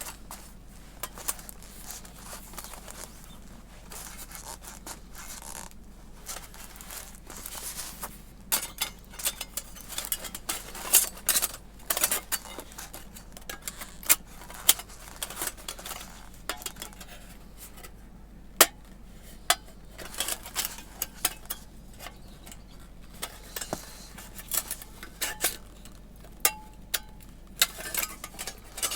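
Thin titanium plates of a small folding fire pit being handled and fitted together: irregular light metallic clinks, taps and clicks, coming more often after the first several seconds.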